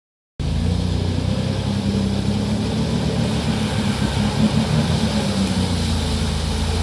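Off-road vehicle engine running steadily at low revs with a deep hum, cutting in abruptly about half a second in.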